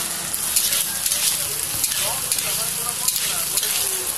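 Sliced onions sizzling in hot oil in a metal kadai, stirred with a metal spatula that scrapes and clinks against the pan over and over.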